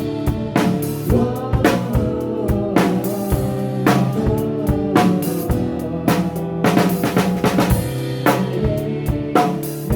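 Live worship band playing an instrumental passage, the drum kit out in front with kick, snare and rimshot hits over held bass and chord tones.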